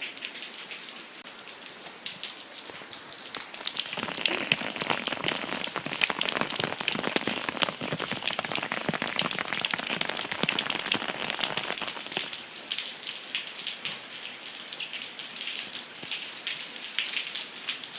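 Rain falling steadily, a dense patter of individual drops close to the microphone, growing louder about four seconds in.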